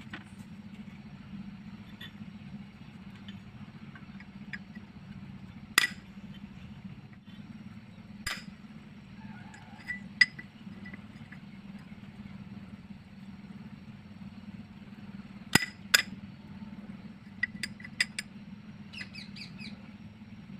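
Scattered sharp metallic clicks and taps as a small spanner and 12 V DC supply leads are handled at an opened horn's electromagnet coil, testing whether the coil magnetises and pulls the spanner. A steady low hum runs underneath.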